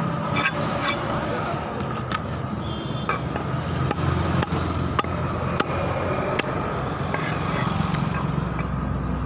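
A heavy cleaver knocking onto a wooden log chopping block as fish is cut, in irregular sharp strikes about every half second to a second, over a steady background din.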